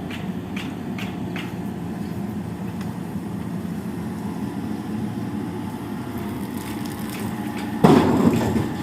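Excavator's diesel engine running steadily, with a few light knocks in the first second and a half and a sudden loud crash near the end that fades over about a second.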